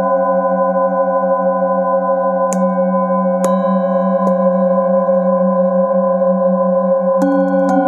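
Several metal singing bowls ringing together in a layered, wavering hum. The bowls are struck with a padded mallet about two and a half seconds in, again around three and a half and four seconds, and twice near the end, and each strike adds a fresh tone to the ringing.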